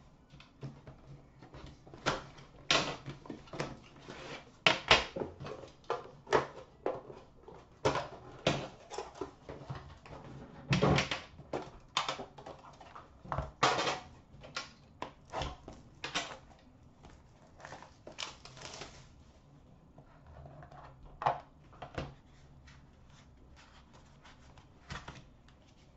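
A hockey card box being unboxed by hand: the cardboard outer box slid off and the black inner box opened, giving a run of sharp knocks, clicks and taps with a few longer scraping slides. It goes quieter near the end as the pack is handled.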